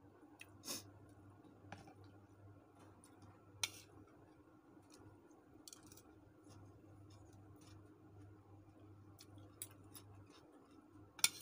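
Metal spoon and fork scraping and clinking against a bowl of rice while eating, a few scattered sharp clicks, the loudest near the end, over a faint steady hum.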